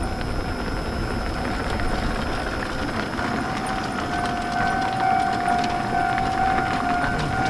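Motorbike riding along at steady speed, its engine running under heavy wind rumble on the microphone. A steady whine joins about three seconds in.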